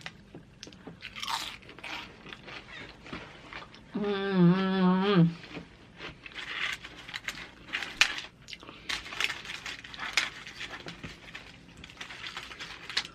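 Someone crunching and chewing loaded nachos, the tortilla chips crackling between bites. A short hummed "mmm" sounds about four seconds in.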